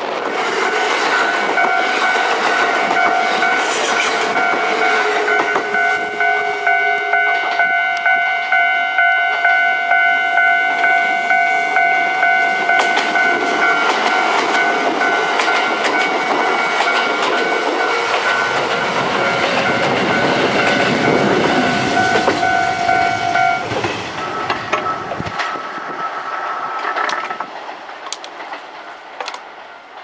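Kintetsu 30000 series Vista Car limited express trains passing close by at a level crossing, their wheels clacking rhythmically over the rail joints. The level crossing's alarm bell rings over them and stops about 23 seconds in, after which the train noise fades away.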